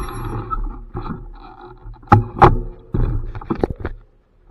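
Bicycle riding noise, tyres and wind, dying away as the bike towing a child trailer comes to a stop. Then a quick series of sharp knocks and clunks from the bike being handled, loudest about two seconds in.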